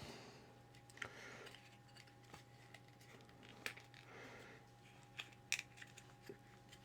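Faint handling sounds of small model-kit parts: a few light clicks and brief soft rustles as a foam seat cushion is fitted into a scale seat frame, over a low steady hum.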